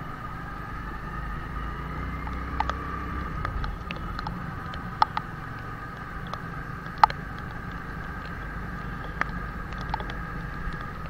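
Motorcycle riding slowly through rain on a wet, muddy road: a steady low engine hum, with scattered sharp ticks of raindrops striking the helmet-mounted camera.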